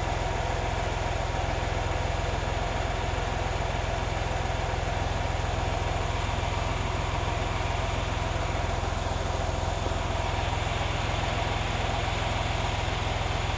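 VW Lupo 3L's 1.2 TDI three-cylinder diesel idling steadily, warmed up to operating temperature.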